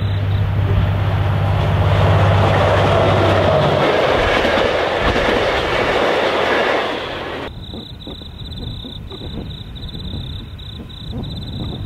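Diesel locomotive hauling a passenger train passes close by at speed: a steady low engine drone first, then the rushing of the carriages' wheels on the rails, which cuts off sharply about two-thirds of the way through. After that, insects chirp over a faint low rumble.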